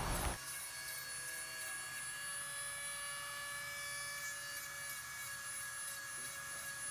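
Battery-powered Dremel rotary tool running steadily as it grinds down a dog's nail: a faint, even whine made of several steady tones.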